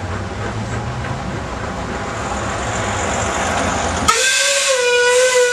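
1918 Aveling & Porter 5-ton steam tractor running along the road with a low rumble, then its steam whistle sounds about four seconds in: one loud, steady, shrill note, held to the end.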